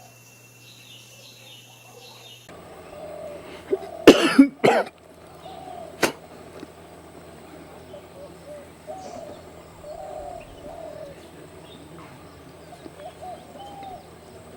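Birds calling outdoors: faint high chirps at first, then, after a change in the sound, a loud whoosh about four seconds in, followed by short low calls that rise and fall, repeated every second or so.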